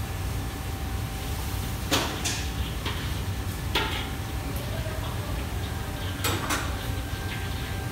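A metal ladle clanks and scrapes against a wok several times, in clusters about two, four and six seconds in, over a steady low rumble.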